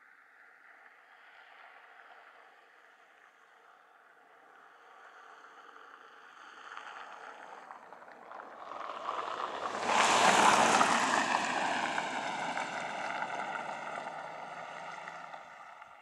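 Rushing noise of a vehicle passing by, swelling to a peak about ten seconds in and then slowly fading.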